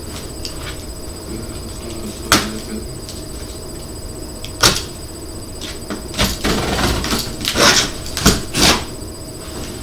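Cardboard shipping box being handled and opened: two sharp knocks, then a run of scraping, rustling noises near the end.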